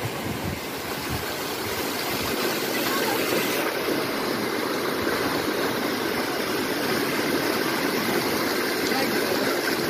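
Shallow water cascading and rushing over travertine ledges and small falls, a steady continuous wash.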